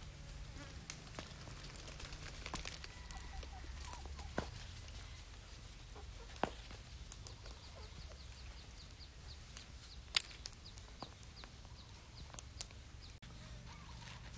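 Shells of charred roasted eggs being cracked and peeled by hand: scattered small crackles with a few sharper cracks. A faint run of quick high ticks sounds in the background midway.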